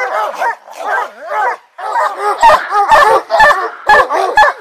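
A pack of hunting hounds barking and baying in a fast run of short calls, several dogs overlapping and the barking growing denser about halfway through.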